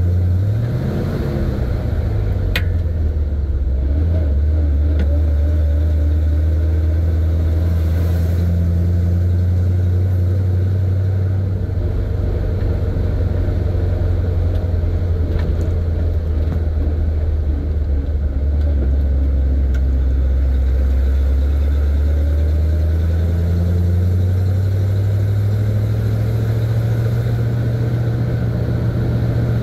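1970 Chevy C50 dump truck's engine running under way, heard from inside the cab. Its pitch dips about a second in, shifts a few more times, and climbs steadily near the end as the truck accelerates.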